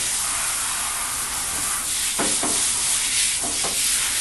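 Hose sprayer on its shower setting, spraying water onto a dog's wet coat in a bathtub: a steady hiss of gentle spray.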